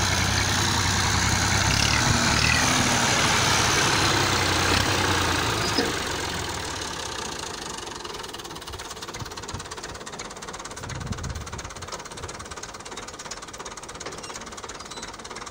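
Massey Ferguson 240 tractor's three-cylinder diesel engine running as the tractor drives across sand. Loud at first, it fades after about six seconds and stays quieter.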